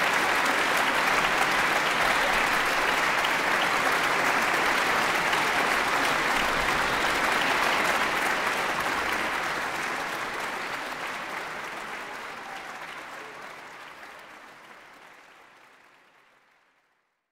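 Concert audience applauding, a dense, steady clapping that fades out gradually over the second half.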